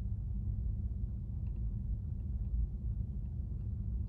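Steady low background rumble, with a few faint computer keyboard clicks scattered through it.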